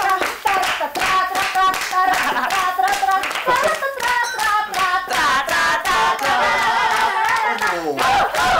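A woman chanting the province name "Trat" over and over as a stretched, sing-song pageant call while several people clap along in a steady beat. Her voice slides down near the end.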